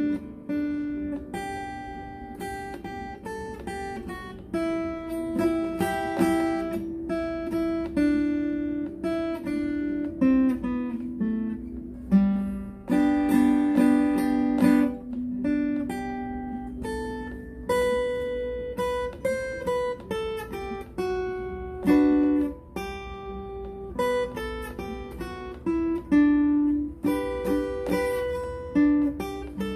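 Acoustic guitar played solo by a beginner, picking a melody of single notes in G major, with a few strummed chords among them.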